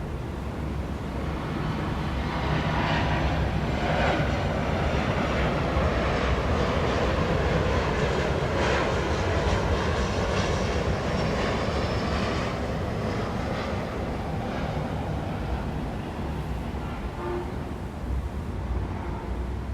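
Steady downtown street-traffic rumble, with a heavy vehicle passing: it swells up about two seconds in and fades away by about fourteen seconds.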